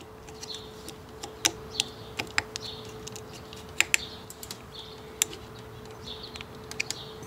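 Small precision screwdriver turning a terminal screw in the plastic base of a Ring spotlight camera: a scatter of sharp, irregular clicks and ticks as the driver tip and screw catch and turn.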